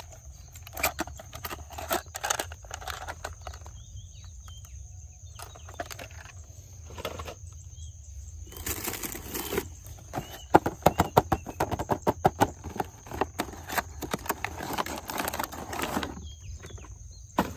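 Plastic toy cars being handled: irregular clicks and clatter, with a brief rustle about nine seconds in and a quick run of rattling clicks in the second half. A faint high steady whine runs underneath.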